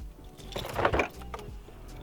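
Background music with steady tones, broken about half a second in by a loud, brief rushing burst of noise lasting about half a second.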